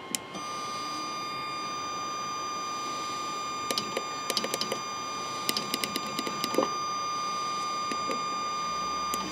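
MYSWEETY 3018 CNC router giving off a steady high-pitched electronic whine, like a held tone, that starts about half a second in while its offline controller is being used to jog the axes. Scattered small clicks come through the middle.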